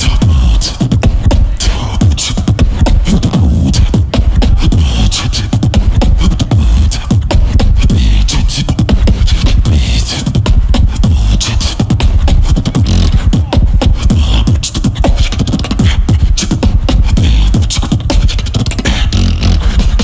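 Solo competition beatboxing: a fast, unbroken rhythm of deep bass kicks and sharp snare-like clicks made with the mouth into a microphone.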